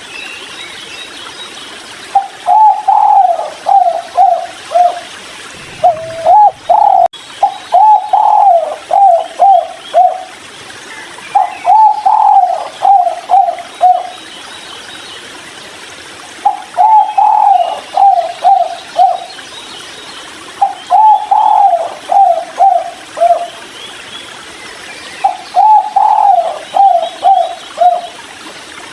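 Spotted dove cooing: repeated phrases of four or five coos, each phrase opening with a longer, slightly rising coo followed by shorter falling ones, a phrase about every four seconds.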